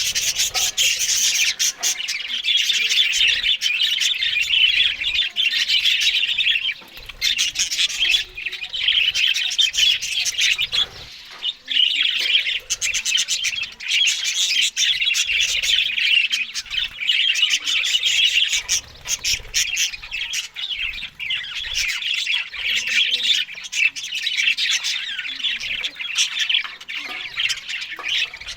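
Several budgerigars chattering and warbling continuously, with many short clicks mixed in and brief lulls.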